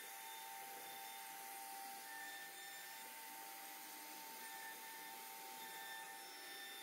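CNC router spindle running with a steady whine and hiss as its bit carves a relief pattern into a wooden panel.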